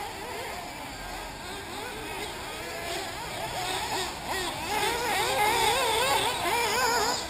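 Several 1/8-scale nitro RC buggy engines revving up and down in high, whining pitches as the cars race around the track. The sound gets louder about four seconds in as they come nearer.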